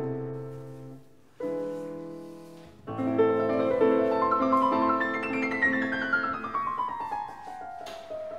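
Background piano music. A chord fades away, a new chord comes in about a second and a half in, and from about three seconds a flowing passage runs down in pitch note by note.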